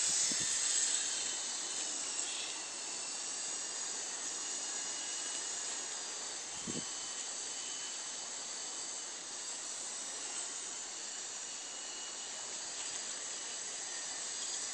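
Small electric 9099 toy RC helicopter in flight: a faint steady motor-and-rotor whine under an even high hiss.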